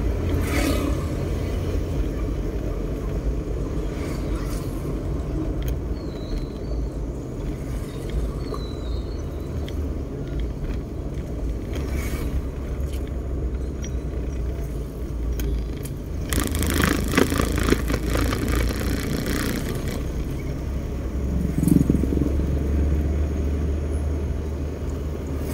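Engine and road rumble of a moving van heard from inside the cabin, a steady low drone. Past the middle a louder rushing noise rises for about three seconds and fades.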